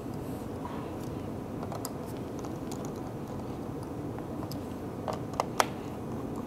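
Light clicks and ticks of a precision screwdriver being handled and turned while tightening a laptop's bottom-panel screws. Two sharper clicks come about five seconds in.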